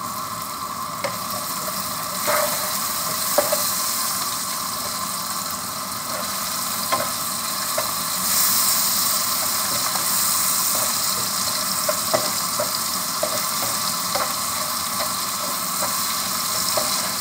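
Prawns frying in hot oil in a pan, sizzling steadily, a little louder from about eight seconds in. A wooden spatula stirring them knocks against the pan now and then in short, sharp clicks.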